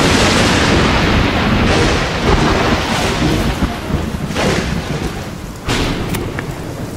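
Thunderstorm sound effect used as a dramatic shock cue: thunder rumbling loudly over steady heavy rain, with fresh cracks of thunder about two, four and a half and nearly six seconds in.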